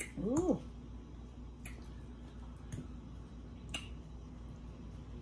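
A short hummed "mm", then a metal fork clicking three times against a glass bowl, about a second apart, as food is scooped.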